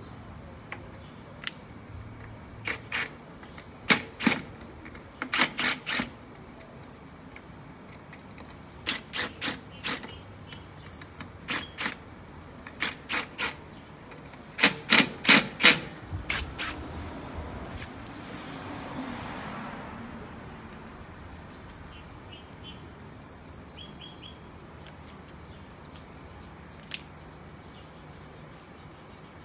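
Sharp knocks in short clusters of two to four, repeated about seven times over some 13 seconds, as door-closer hardware is tapped into place on a storm door. A brief soft rustling follows, with a few faint bird chirps.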